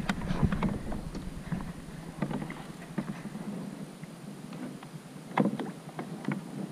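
Small waves lapping and slapping against the plastic hulls of two sit-on-top kayaks lying side by side, with irregular knocks and taps. The loudest knock comes about five and a half seconds in.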